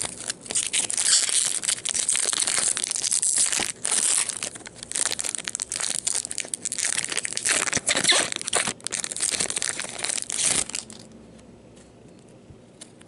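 Shiny foil wrapper of a Topps baseball card pack being torn open and crumpled by hand: a dense crinkling crackle that stops about eleven seconds in.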